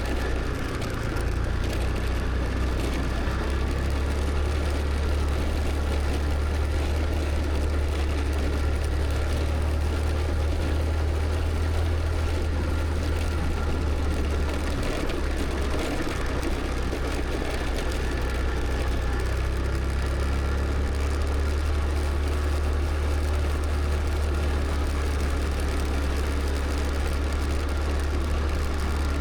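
Scooter riding along at a steady pace: the engine's hum mixed with road noise, mostly a steady low rumble.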